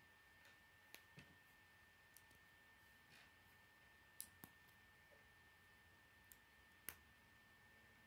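Faint, irregular clicks of plastic K'nex rods and connectors being snapped together by hand, about six over several seconds.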